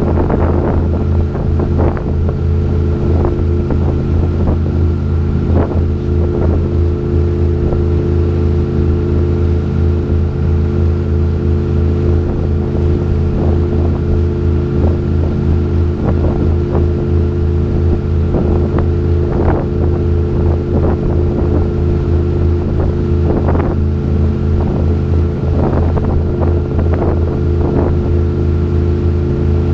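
Tour boat's engine running at a steady cruise, a constant low drone, with frequent short splashes of water from the hull and wake and wind on the microphone.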